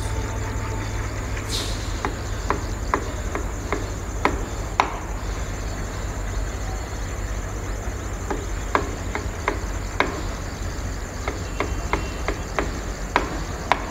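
Trackside ambience: insects buzzing steadily and high over a low, even rumble, with irregular sharp ticks every half second or so.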